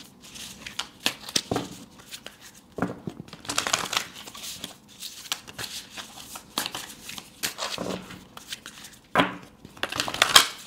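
Tarot cards being shuffled by hand: irregular bursts of papery rustling and flicking, with a few sharper, louder strokes along the way.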